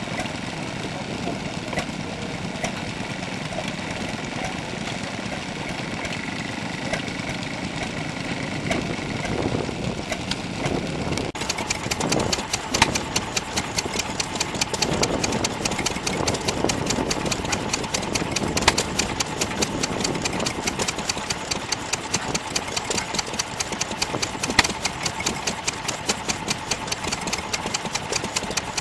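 Vintage belt-driven stationary engine running. About eleven seconds in, it gives way to a small Ruston single-cylinder stationary engine running with a fast, even firing beat.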